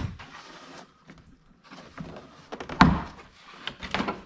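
Door trim panel of a Jeep Grand Cherokee ZJ being pried off the front door, its retaining clips popping loose: a sharp snap at the start with a short scrape after it, then a louder knock about three seconds in and smaller knocks near the end.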